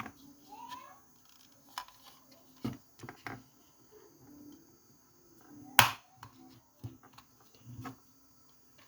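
Scattered sharp clicks and knocks of plastic parts, the loudest about six seconds in, as a screwdriver pries apart the snap-fit housing of a hair dryer.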